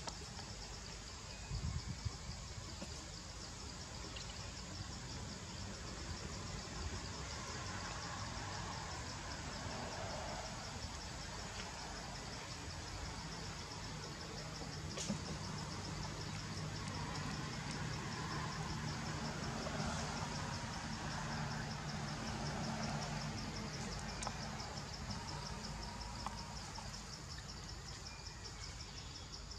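Steady, high-pitched insect chorus with a fast, even pulsing trill, running without a break.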